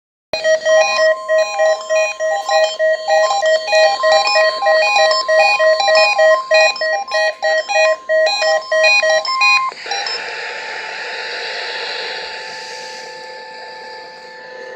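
NOAA Weather Radio's 1050 Hz warning alarm tone, held steady for about nine seconds with a fast pattern of stepped, alternating beeps over it. This is the alert tone of a Required Weekly Test. The tone cuts off abruptly, leaving steady radio hiss.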